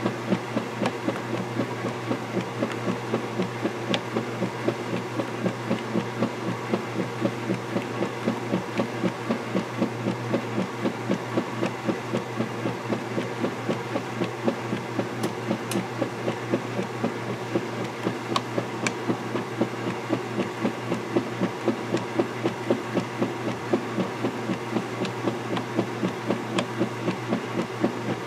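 Vintage KitchenAid direct-drive top-load washer agitating a load of clothes in soapy water: a steady motor hum under a regular churning pulse, several strokes a second, as the finned agitator swings back and forth.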